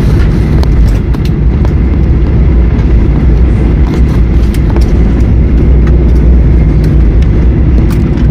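Loud, steady low rumble heard inside the cabin of a Boeing 737-800 rolling out on the runway after touchdown, with its spoilers raised. Scattered sharp clicks run through it.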